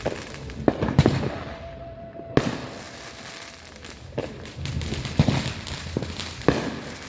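Fireworks going off, about eight sharp bangs at uneven intervals, each with a short echoing tail.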